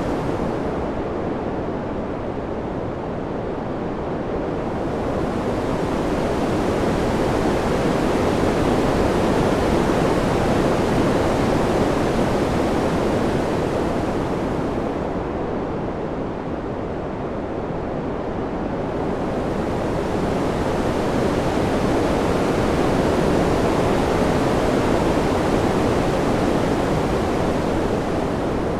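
Ambient wind sound: a steady, even rush with no gusts or clicks. It dulls twice, a slow swell about every fifteen seconds, then brightens again.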